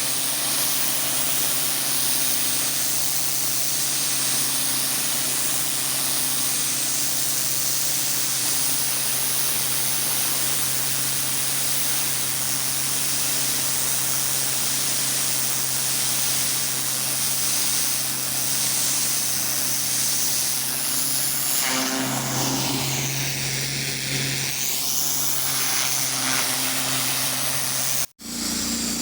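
Gas-engine pressure washer running steadily under load, with the constant hiss of high-pressure water spraying on concrete. About 22 seconds in the engine hum gets stronger and the spray sound shifts.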